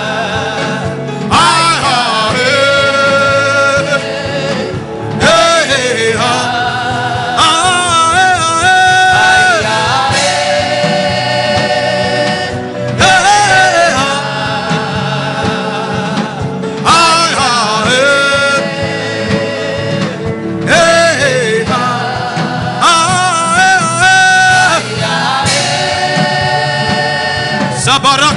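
Gospel worship chant: sung phrases a few seconds long, with long held, wavering notes and short breaks between them, over steady instrumental backing.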